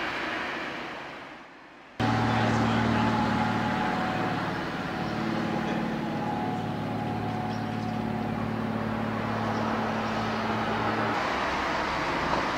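Narrow-gauge electric train of the Appenzeller Bahn running on track with a steady low hum and a few held tones. The sound cuts in abruptly about two seconds in. The low tones stop near the end. No high-pitched wheel squeal stands out.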